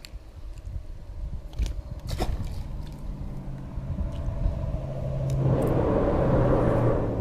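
An engine running, a steady low hum over a rumble. A rushing noise swells about five seconds in.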